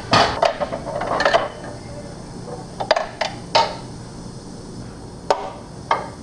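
Unpainted metal sway bar for a 2013 Can-Am Spyder ST knocking and clanking against the frame and lift as it is worked into place. A quick cluster of knocks in the first second and a half, then a few single clanks spaced out.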